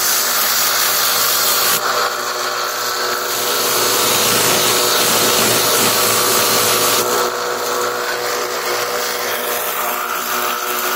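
Electric sharpening grinder running steadily as an AK-47 bayonet's steel blade is ground against it, a motor hum under a hiss of grinding. The hiss changes about 2 seconds in and again about 7 seconds in.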